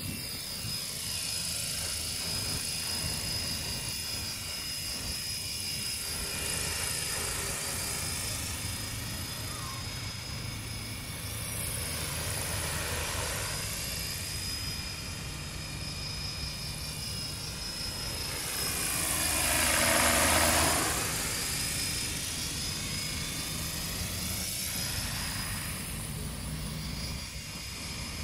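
Electric coaxial radio-controlled helicopter, a brushless motor driving two contra-rotating wooden rotors at about 1700 rpm, flying with a steady rotor whir and motor whine. It swells louder and sweeps in pitch as it passes close about twenty seconds in.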